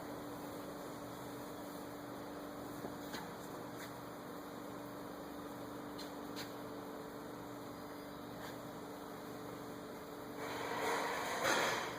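Steady electrical hum, with a few faint light clicks and a brief louder scraping rustle near the end.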